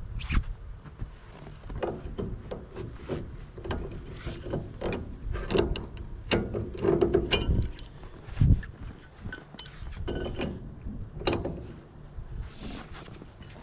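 Irregular metal knocks, clanks and clicks of hand tools on tractor parts as a pin or bolt is tapped and worked into its hole, with a heavier thump about eight and a half seconds in.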